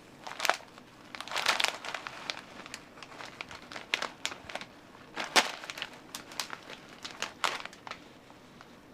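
Packaging being crumpled and crinkled by a monkey digging through a gift box: irregular rustling broken by several sharp crackles.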